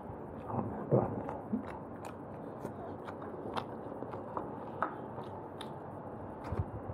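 Close-miked chewing and mouth sounds of a man eating roast chicken by hand, with scattered small wet clicks and smacks and a louder one about a second in.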